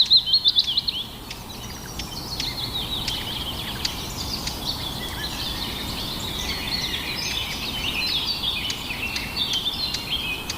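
Birds chirping and twittering, opening with a loud, rapid run of short falling notes in the first second, then a busy stream of high chirps.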